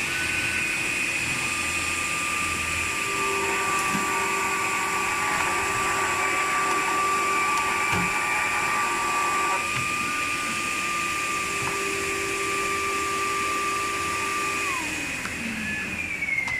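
Industrial template sewing machine running with a steady, high motor whine; near the end the whine drops in pitch as the machine winds down.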